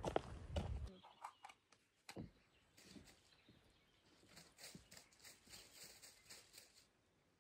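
Footsteps crunching on a gravel path, which stop about a second in. Faint scattered clicks and ticks follow.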